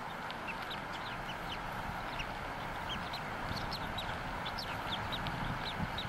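Newly hatched bald eaglet peeping: many short, thin, high chirps that fall in pitch, several a second, over a steady background hiss.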